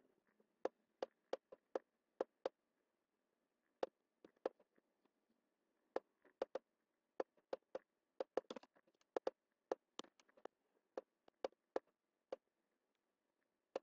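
Computer mouse button clicking: about thirty sharp single clicks at an uneven pace, with pauses of a second or more now and then.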